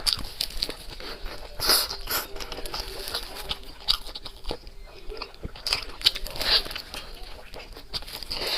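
Close-miked eating: irregular crunchy bites and chewing of crisp food, with louder crunches about two, four and six seconds in.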